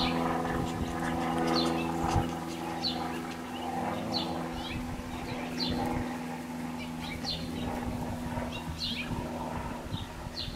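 A bird chirping over and over, a short falling note about once a second, over a steady low mechanical hum.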